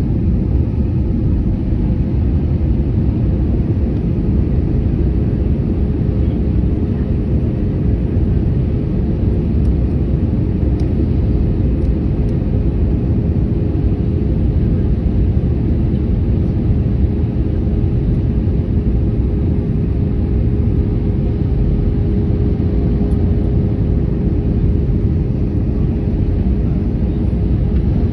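Airplane cabin noise in flight: the engines and airflow make a steady, loud, deep rumble with a constant hum on top.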